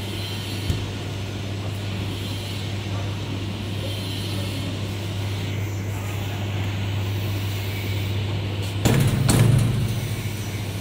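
Steady low hum of running equipment, with a single sharp click about a second in. Near the end, a louder scraping rattle of about a second as the stainless-steel head of the extraction chamber is turned tight by its handle.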